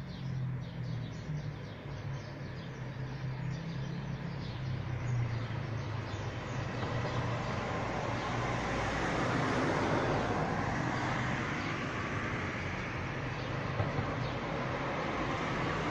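Steady low motor hum, like a vehicle engine running, with a rush of traffic noise that swells in the second half and then eases.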